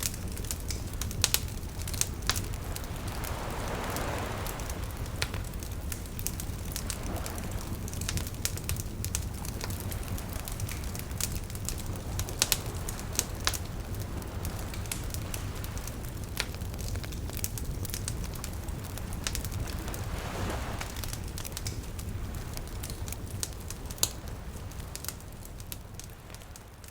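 Wood fire crackling with frequent sharp pops over a steady low rumble of surf, with waves washing in a few times. The sound fades out near the end.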